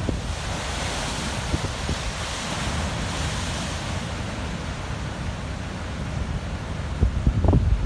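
Pacific surf breaking and washing over a rocky shore: a continuous rush of water with a low rumble. Wind buffets the microphone throughout and gusts harder near the end.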